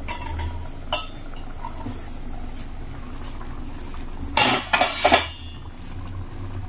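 Steel cookware clanking: a light metal clink about a second in as the steel lid comes off the steel kadhai. Then, about four and a half seconds in, a short cluster of loud metal scrapes and knocks as a spoon works against the pan.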